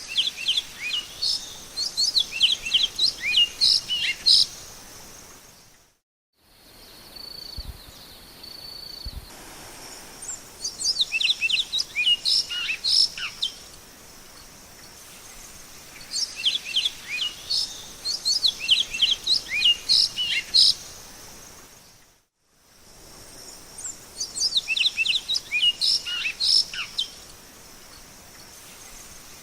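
Great-billed seed finch (bicudo) singing: fast phrases of varied whistled notes, each phrase about four to five seconds long, repeated four times with pauses between, over a steady high hiss. The sound cuts out completely for a moment twice.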